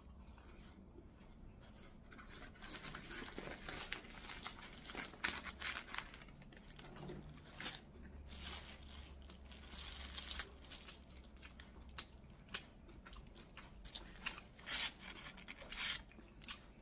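A person chewing a mouthful of fried twisted doughnut (kkwabaegi), with soft irregular crunches and mouth clicks.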